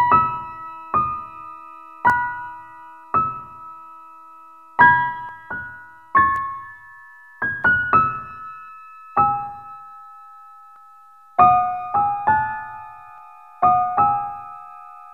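Slow, sparse piano music: single notes and small chords struck roughly once a second, each left to ring and fade.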